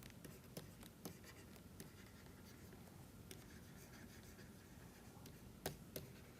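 Faint pen-writing sounds: light scratches and small taps of a pen on a writing surface, with two sharper taps near the end.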